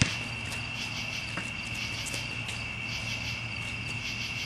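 Crickets chirping in a steady, continuous high trill. A basketball bounces once sharply on the court at the start, and more faintly once more about a second and a half in.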